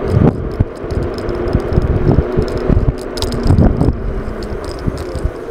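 Electric scooter riding along a road: wind buffeting the microphone over tyre rumble, with a steady faint motor whine. Several rattles and knocks from the frame come in the middle.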